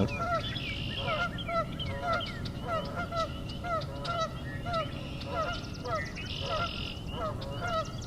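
A flock of geese honking nonstop, many short calls overlapping each other. A higher, rapid trill from another bird shows through the honking twice: in the first second and again around six seconds in.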